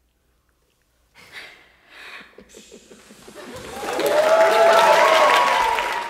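A second of silence, then a few soft laughs and breaths, then a small room of people breaking into applause with whoops of cheering that swell to loud about three and a half seconds in and begin to fade near the end.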